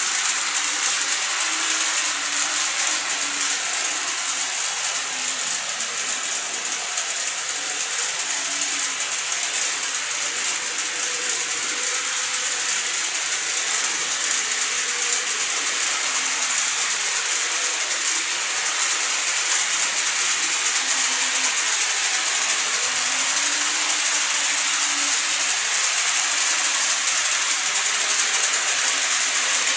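Model freight train, an EH200 electric locomotive model hauling Taki 1000 tank wagons, running steadily along the layout's track: a continuous, even rolling noise of small wheels on rail with a high hiss.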